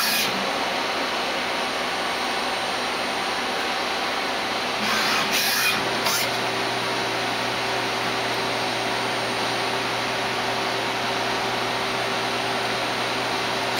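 Citizen M16 CNC Swiss lathe running through a program with its axes moving: a steady whir with a constant hum. About five seconds in comes a short burst of higher noise, after which a lower hum joins.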